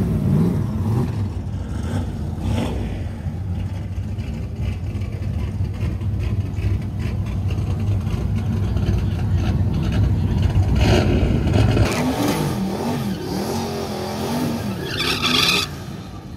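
Fox-body Ford Mustang drag car doing a burnout in the water box: the engine revs, its pitch wavering up and down, with a burst of tyre hiss near the end before the revs drop off.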